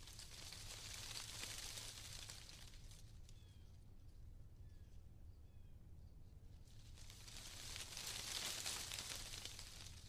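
Wind gusting through tree leaves, the leaves rustling in two swells: one at the start and a stronger one about eight seconds in.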